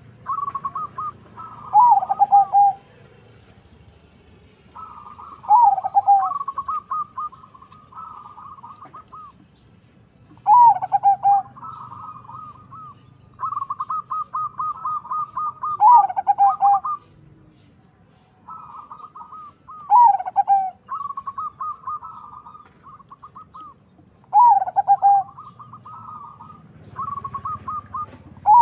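Zebra dove (perkutut), a local × Bangkok crossbreed, singing: a phrase of quick trilling coos followed by lower, falling coos, repeated about every four to five seconds.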